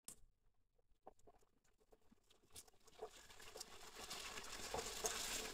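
Freshly added onions and green chillies sizzling in hot oil in a frying pan, the sizzle starting faint and growing steadily louder, with scattered light clicks and scrapes of a silicone spatula stirring them against the pan.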